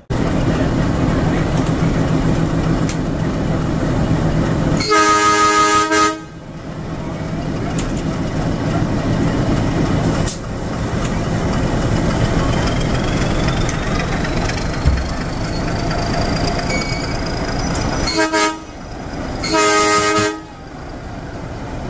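YDM-4 diesel locomotive horn sounding one long blast about five seconds in, then a short toot and a second, longer blast near the end, signalling the train's departure. A diesel engine runs steadily underneath.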